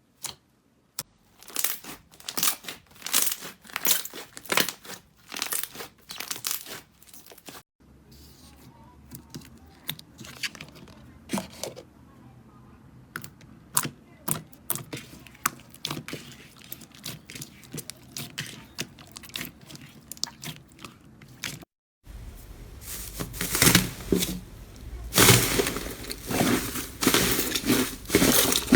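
Slime being squeezed and pressed by hand, giving off dense crackling and popping. There are three separate stretches, and the last is the loudest.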